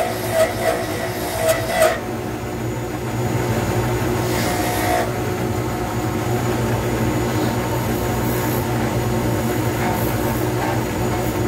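Wood lathe running with a steady motor hum as it spins a resin pen blank. A turning tool cuts the blank in uneven scraping bursts over the first two seconds, and once more briefly about four and a half seconds in.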